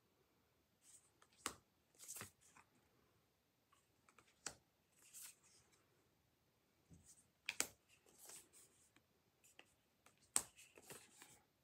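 Tarot cards being handled one at a time, lifted off the deck and laid back down: faint sharp taps about every three seconds, each with a short swish of card stock sliding.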